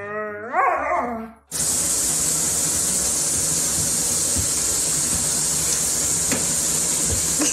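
A dog howling, rising and falling in pitch, cut off after about a second and a half by a steady hiss of water running into a bathtub.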